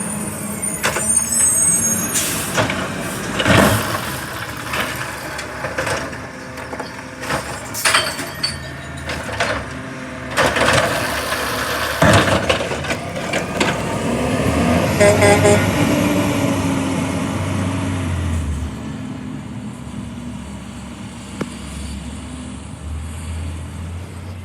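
Recycling truck's diesel engine running, with a string of clattering knocks and bangs as recyclables are dumped into it. A few quick horn toots come about fifteen seconds in, and the engine then fades away.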